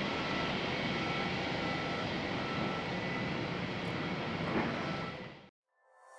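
Jet airliner engines running with a steady rushing noise, over a short high beep that repeats at an even pace. The sound cuts off abruptly about five and a half seconds in.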